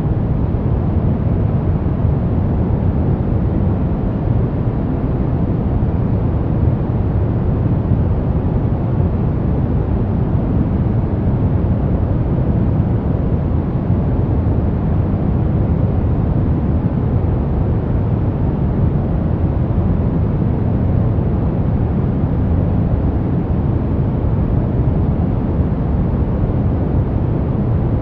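Steady deep brown noise: an even, rumbling hiss weighted to the low end, with no changes or events.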